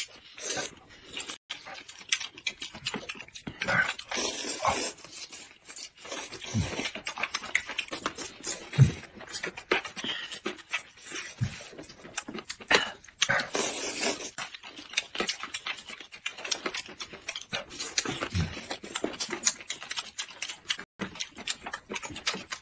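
Close-miked eating: wet chewing, lip-smacking and slurping as two people eat noodles and deboned chicken feet, with many short irregular mouth clicks.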